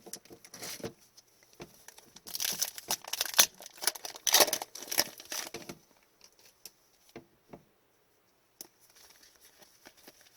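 Plastic trading-card pack wrapper crinkling and tearing as the pack is opened, a dense crackle lasting about three and a half seconds, followed by a few light clicks.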